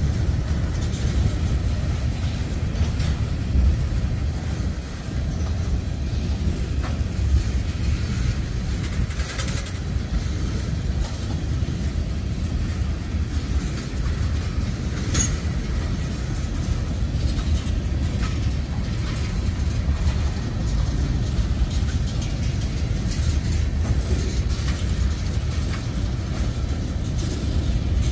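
Freight cars of a manifest train, tank cars and covered hoppers, rolling past close by: a steady low rumble of steel wheels on rail with occasional clicks and clanks.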